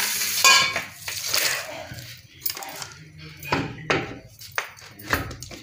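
Stainless-steel mixer-grinder jar and its plastic lid being handled, the lid fitted and the jar set down onto the motor base: a series of separate knocks and clinks, the loudest about half a second in.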